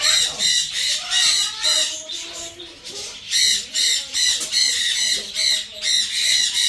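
Baby blue-and-gold macaws giving harsh, raspy begging squawks while being hand-fed, in quick repeated pulses of about two to three a second.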